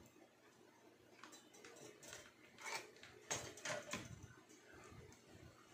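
Metal screwdriver tip clicking and scraping against a toaster's internal metal terminal and frame as the contact is pushed into position: a handful of light, short clicks and taps, the loudest a little past three seconds in.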